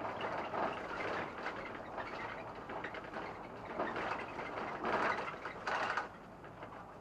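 Interior of a SOR NB 12 city bus in motion: running noise with irregular rattling and ticking, dropping in level about six seconds in.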